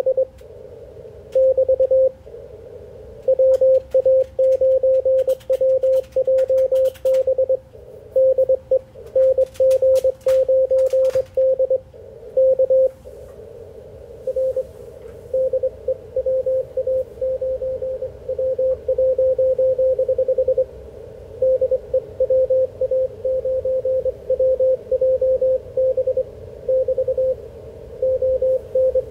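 Morse code (CW) from an ICOM IC-746PRO HF transceiver tuned to 3.552 MHz in the 80-metre band: a single tone of about 550 Hz keyed on and off in dots and dashes over a narrow band of receiver hiss. There are a few sharp clicks in the first dozen seconds, and the keyed tone comes through somewhat weaker from about thirteen seconds in.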